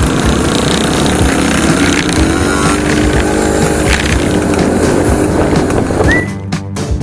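Scooter engines running during a slow group ride, with wind rushing over the microphone; a pitched engine note comes up about two seconds in and holds for a few seconds. Music cuts in near the end.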